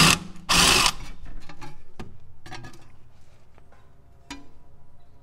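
Cordless power tool with a 21 mm socket spinning the nut off a Porsche Cayman inner tie rod: two short loud bursts at the start, then quieter, evenly pulsing running that fades away, with a small click near the end.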